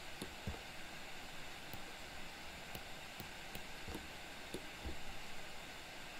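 Steady faint hiss of an open microphone in a quiet room, with a few light clicks and soft low knocks scattered through it.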